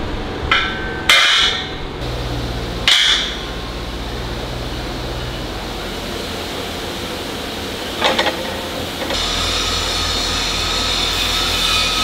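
Heavy cast iron drain grates clanking metal on metal as they are handled and stacked. There are a few ringing clanks in the first three seconds and a double clank about eight seconds in, over steady factory machinery noise.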